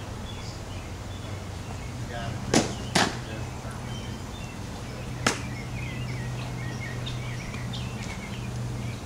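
Sharp leather smacks of a softball meeting a fielder's glove or catcher's mitt: two close together about two and a half seconds in and a third a couple of seconds later, over a steady low hum.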